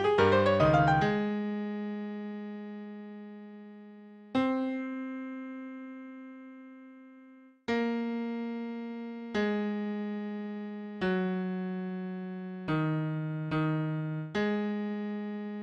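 An electric piano plays a choral bass part as a single-note line, each note struck and left to die away. A few quick notes open it, followed by two long held notes and then a new note roughly every second and a half.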